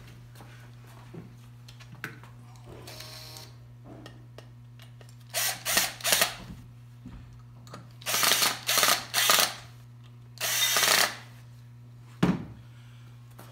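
Cordless drill-driver running screws into wood in short bursts: three quick bursts about five seconds in, three more around eight to nine seconds, then one longer run near eleven seconds. A single knock follows near the end as the drill is set down.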